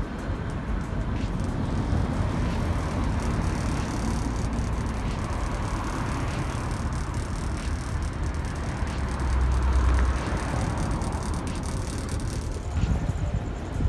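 Car driving at city speed, heard from inside the car: steady road and engine noise with a low rumble that swells briefly about nine to ten seconds in.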